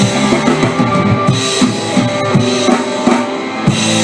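Rock song with drum kit, bass and electric guitar, an instrumental stretch between sung lines.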